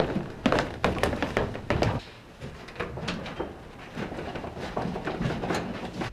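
Footsteps thudding up indoor stairs, about two or three steps a second, for the first two seconds. Then quieter scattered taps and clicks as a door is opened.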